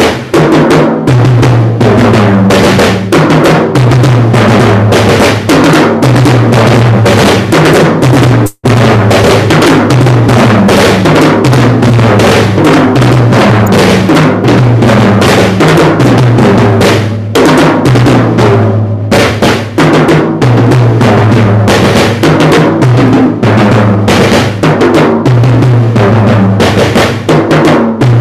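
Acoustic drum kit played fast and without pause: a repeated three-stroke fill (the '3-stroke hurricane') moving around the snare and toms, with bass drum under it, the drums' pitches stepping as the sticks travel across the set. Very loud, with one brief break about eight and a half seconds in.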